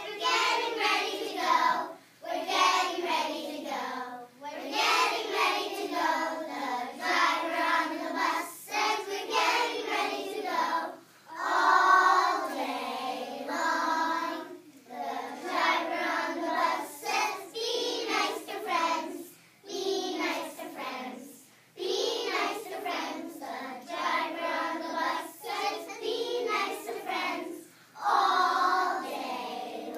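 A group of young children singing together in unison, phrase after phrase with brief pauses between lines.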